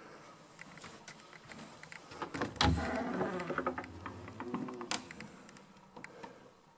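A wooden interior door being opened by its lever handle: handle clicks, a heavy thump about two and a half seconds in, a short creak, and a sharp click shortly after.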